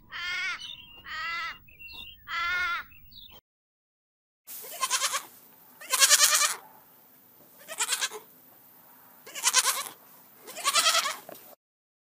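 Goat kids bleating, five loud wavering bleats spaced a second or two apart. Before them come three shorter, fainter high calls, then a brief silence.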